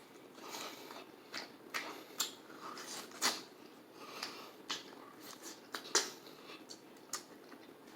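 Chewing fried chicken: irregular crunches and mouth clicks, with a couple of louder crunches spread through.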